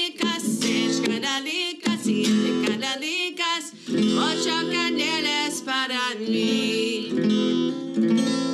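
A woman singing to her own strummed acoustic guitar, with short breaks between the sung phrases.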